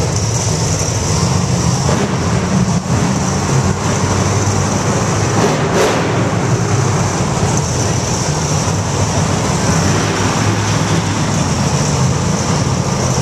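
Monster truck engines running, a loud, steady low drone with no let-up.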